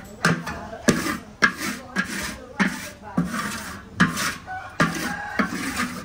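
A utensil scraping and knocking in a pan of cooking coconut palm sugar, about two strokes a second, with a rasping scrape between the knocks.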